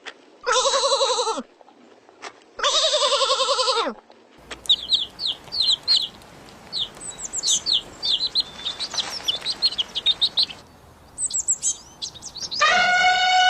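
Two wavering bleats about a second long each, then small birds chirping rapidly over a steady hiss for several seconds. Near the end a long drawn-out animal call begins, falling in pitch as it ends.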